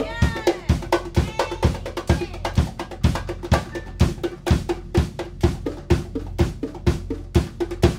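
Live band playing a steady funk-rock groove, with hand-played congas up front: quick slaps and open tones over a regular beat of about two a second.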